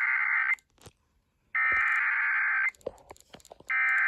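Emergency Alert System SAME header data bursts, the harsh digital buzz that opens a tornado warning: the end of one burst, a full burst about a second and a half in, and the start of a third near the end. Each burst lasts about a second, with a second of gap between them.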